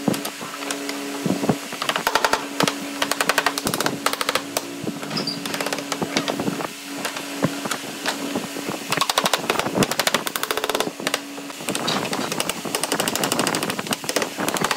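Loose pine slats clattering and knocking against each other and the wooden frame as they are handled and fitted into a table top, in quick rattling runs, with a few hammer taps near the end. A steady low hum in the background stops about three quarters of the way through.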